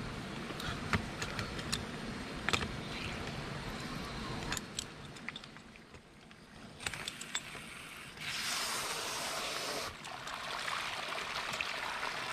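Metallic clicks and scrapes as a pipe wrench turns a threaded coupling on a rusty metal water pipe. About eight seconds in, water starts rushing out of the opened joint and keeps gushing. The line had stopped flowing, clogged by old dry leaves and twigs, and is being opened to clear it.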